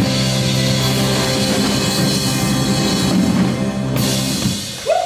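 Live rock band with drum kit holding a long closing chord, with a final sharp hit about four seconds in; the music stops just before the end.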